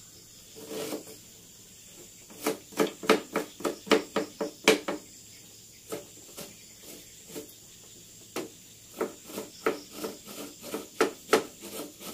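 Kitchen knife chopping onion on a cutting board: runs of sharp knocks about three or four a second, slowing to a few scattered strokes in the middle.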